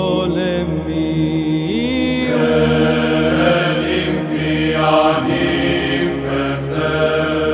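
Greek Orthodox Byzantine chant by male voices: a drawn-out melismatic melody sung over a steady held drone (the ison).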